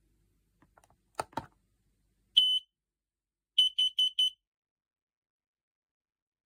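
Two sharp clicks, then the X-Sense XC04-WX carbon monoxide alarm's sounder gives one high beep and, about a second later, four quick high beeps, the pattern a CO alarm sounds.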